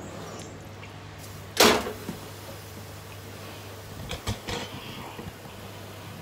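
Kitchen utensils and containers being handled: one loud clatter about a second and a half in and a few lighter knocks around four seconds in, over a steady low hum.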